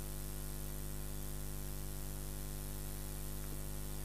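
Steady electrical mains hum with a stack of even overtones, under a constant hiss: the noise floor of a sound or recording system, with no voices heard.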